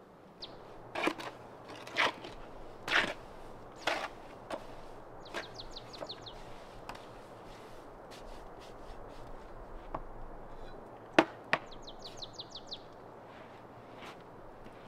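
Four heavy knocks about a second apart, then lighter scattered knocks and two sharp knocks close together later on, typical of hand work with a striking tool. Twice a small bird gives a quick high trill of about eight fast notes.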